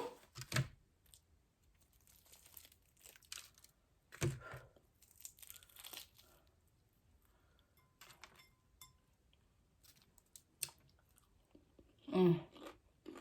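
Close-up crunching and chewing of crispy fried food, a crab rangoon or fried chicken, in scattered crackles with a louder bite about four seconds in. Near the end there is a short voiced sound.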